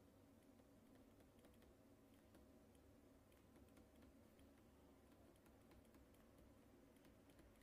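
Faint computer keyboard typing: irregular, light key clicks over a low, steady room hum.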